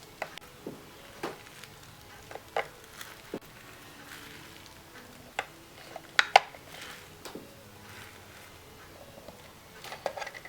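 Small plastic toy figures being set down in a plastic toy fridge playset: scattered light clicks and taps, with the loudest pair about six seconds in.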